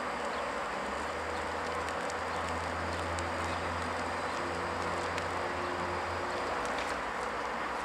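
SŽ class 342 electric locomotive standing with its equipment running: a steady whirring hum, with a deeper low hum that comes in about a second in and stops about six seconds in.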